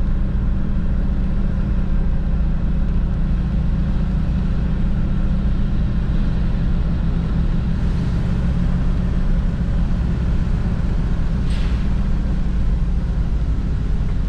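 Grain truck's engine running steadily, heard from inside the cab, with a low, even drone. A brief hiss about two-thirds of the way in.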